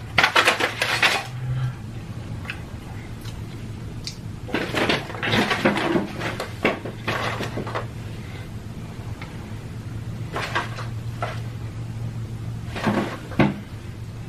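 Pringles potato crisps crunched while chewing close to the microphone, in several short bursts, with a low steady hum under the middle part.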